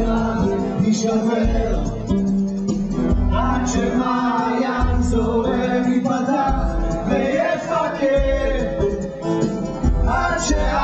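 A live rock band playing, with a singer, electric guitar and strong bass notes.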